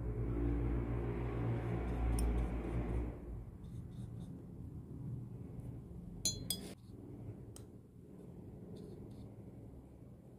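Paintbrush rinsed in a glass water jar: a low swishing rumble for about three seconds, then a couple of sharp glass clinks about six seconds in.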